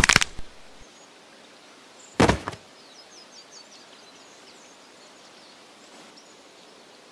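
Two sharp chomping hits, a couple of seconds apart, as a predatory dinosaur bites into a carcass, followed by a faint outdoor background with small high bird chirps.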